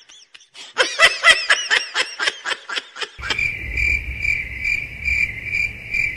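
High-pitched giggling laughter in a quick run of short rising-and-falling bursts. About three seconds in it cuts to cricket chirping, an even high chirp about two and a half times a second.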